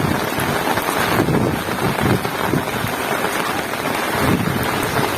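Heavy rain falling steadily, with wind buffeting the microphone in uneven low gusts.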